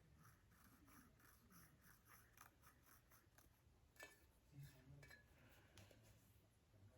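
Very faint scratching strokes, a few a second, of a painting tool dragged over a tile, with a sharper click about four seconds in.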